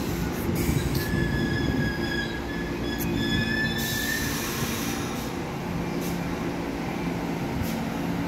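R211T open-gangway subway train running into the station over a steady low rumble and hum. A high, steady wheel squeal starts about a second in and stops about four seconds in.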